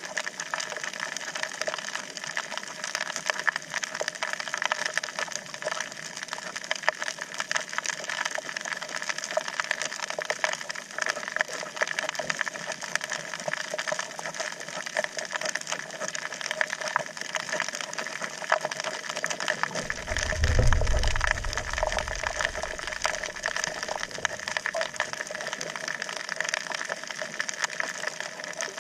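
Underwater reef ambience picked up by a submerged action camera: a dense, steady crackle of tiny clicks, typical of snapping shrimp on a coral reef. A brief low rumble comes about twenty seconds in.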